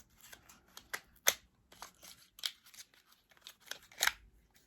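Cosmetic packaging being handled: a string of short plastic clicks and taps with light rustling, the sharpest about a second in and near the end.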